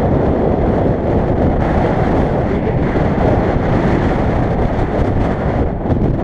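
Wind buffeting the camera's microphone: a loud, steady rumbling rush of noise.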